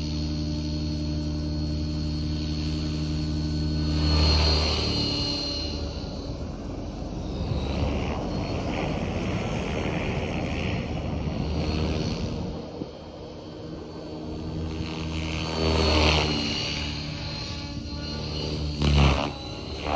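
Align T-REX 600E Pro electric RC helicopter in flight: a steady rotor hum with a thin high whine on top. It swells loudly as the helicopter passes about four seconds in and again about sixteen seconds in, with two short louder peaks near the end.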